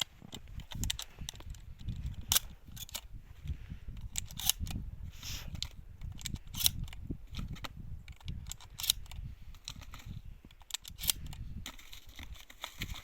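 A run of sharp cracks and clicks over a steady low rumble, the loudest crack coming about every two seconds.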